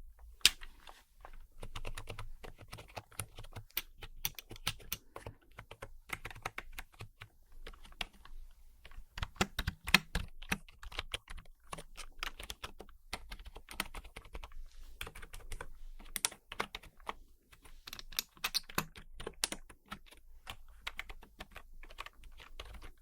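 Typing on a computer keyboard: a steady run of irregular key clicks and taps, several strokes a second.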